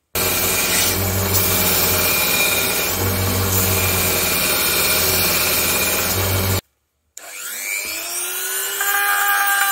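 Bench belt sander running and grinding the edge of a birch plywood slingshot blank down to its line, a steady noise that stops abruptly about two-thirds of the way in. Shortly after, a handheld rotary tool with a sanding drum starts up, its whine rising in pitch as it spins up and then holding steady.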